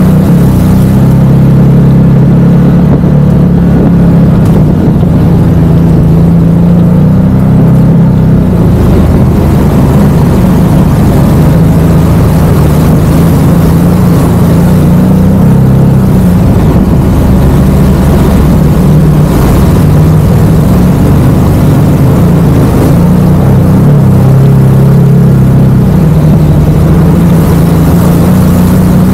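Side-by-side's engine running steadily at low to moderate revs, its pitch drifting up and down a little with the throttle.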